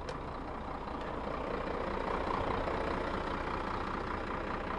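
Scania 124L's 12-litre straight-six diesel idling steadily, heard from inside the cab, running smoothly. Its level swells a little about two seconds in, then settles.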